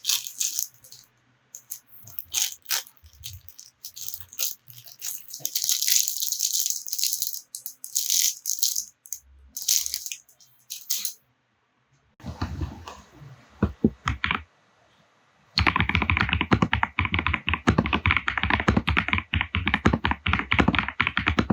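Keys of an Eweadn Forerunner x87 mechanical keyboard being typed on: crisp, high-pitched clicks in irregular runs at first, then about 15 seconds in a burst of fast, continuous typing with a fuller, deeper clatter.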